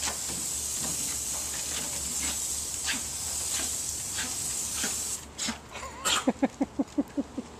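Garden hose spray nozzle hissing steadily as it sprays water onto a small dog and a wooden deck, then shut off about five seconds in. Near the end comes a quick run of rapid, loud flapping pulses, about eight a second: the Schipperke shaking the water from its coat.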